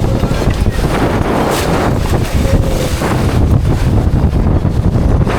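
Wind buffeting the microphone: a loud, steady low rumble with a few stronger gusts, with water noise mixed in.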